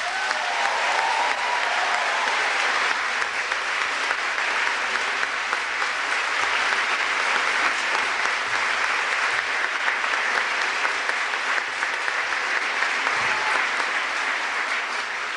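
Crowd applauding steadily, easing off slightly near the end.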